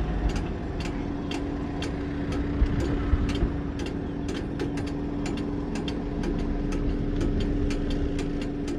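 A steady motor hum holding one tone over a low rumble, with faint sharp ticks about three or four times a second.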